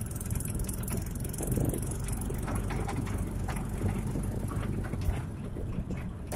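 Small motorcycle engine running steadily while riding over a rough, potholed road, with frequent knocks and rattles from the bumps.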